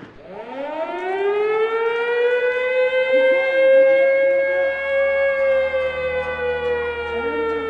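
Air-raid-style siren sound effect played through the club PA between rap verses: a single wail that rises quickly at the start, holds, and slowly sinks in pitch near the end.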